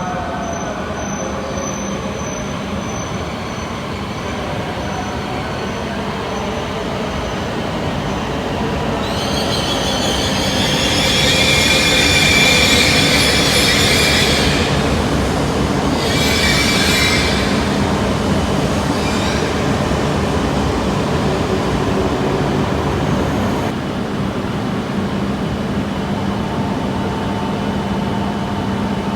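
Shinkansen train moving slowly along the station platform, running noise steady throughout, with a high squeal that sets in about nine seconds in, peaks and fades, then returns briefly a few seconds later.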